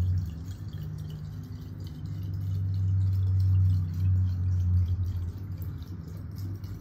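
Tap water poured from a glass bottle through a plastic funnel into an amber glass spray bottle: a steady run of water trickling and gurgling down the funnel. A low rumble under it swells in the middle.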